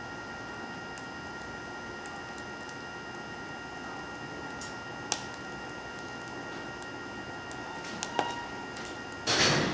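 BioLite CampStove burning wood with its small electric fan running steadily, a thin whine over the low rush of the fire, with a couple of sharp pops from the burning wood. A short loud burst of noise near the end.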